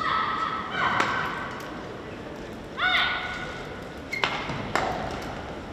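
Badminton doubles rally: players' shoes squeaking on the court mat several times in short high-pitched squeals, some sliding up in pitch, with sharp cracks of rackets striking the shuttlecock.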